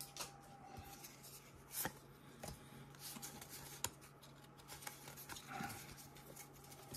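Faint handling of a stack of Pokémon trading cards: soft rubbing and a few light ticks of card stock as the cards are squared and fanned in the hands, over a faint steady hum.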